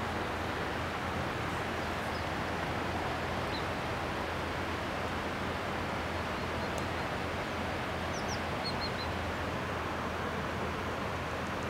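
A steady rushing outdoor noise with a few faint, short, high-pitched calls of tits, including two quick rising notes and a run of three notes past the middle.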